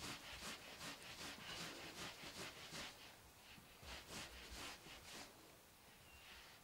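Palms rolling wool strands back and forth on a coarse terry towel to felt them into dreadlocks: faint, rhythmic rubbing strokes, about three a second, that stop about five seconds in.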